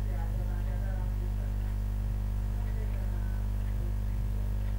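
Steady low electrical hum with its overtones, unchanging throughout, with faint indistinct wavering sounds underneath.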